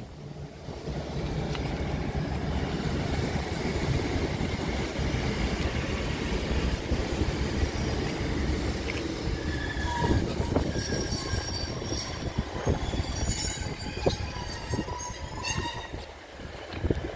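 Northern diesel multiple unit running along the platform: a steady rumble of engine and wheels on the rails, with high wheel squeals coming and going from about five seconds in.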